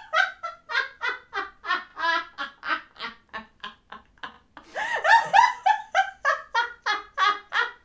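People laughing hard in a rapid run of 'ha' pulses, about three a second, that dies down about four seconds in, then breaks out again louder.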